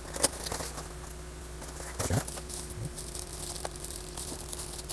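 Plastic wrapping rustling and crinkling in the hands as a wireless access point is pulled out of its packaging, with scattered small clicks of handling, over a faint steady hum.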